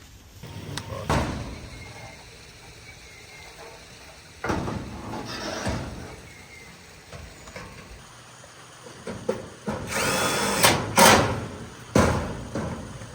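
Power drill run in several short bursts during construction work, probably driving fasteners. The longest and loudest burst, with a rising motor whine, comes about ten seconds in.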